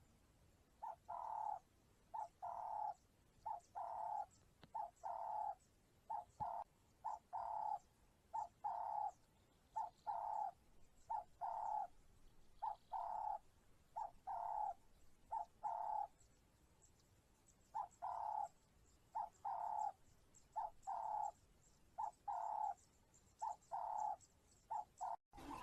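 A bird calling over and over in short notes of one pitch, mostly in quick pairs or threes, with brief pauses every few seconds.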